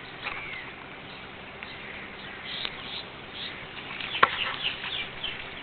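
Scattered bird chirps over a steady high insect drone, with one brief sharp sound about four seconds in.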